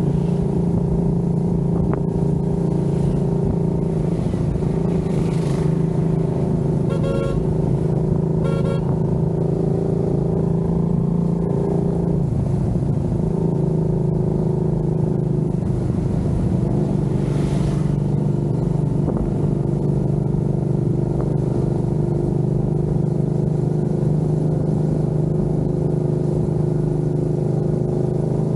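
Cruiser motorcycle engine running steadily while riding at road speed. A horn beeps twice, briefly, about seven and eight and a half seconds in.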